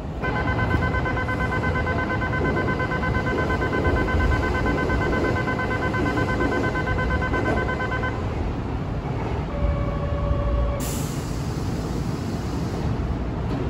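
A pulsing multi-pitched signal tone rings for about eight seconds over the low rumble of a Kintetsu 3200 series train standing at the platform. A couple of short lower tones follow, then a hiss sets in about eleven seconds in.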